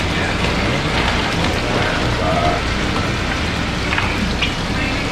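Water running and splashing in a live blue crab holding tank, a steady rain-like patter, with a few short clicks and splashes as metal tongs pick crabs out of the water.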